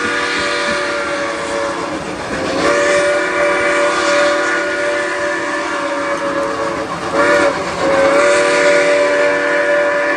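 Steam locomotive #475's whistle sounding the grade-crossing signal: a long blast ends about two seconds in, then comes another long blast, a short one, and a final long blast. Each blast is a steady chord of several tones, over the noise of the moving train.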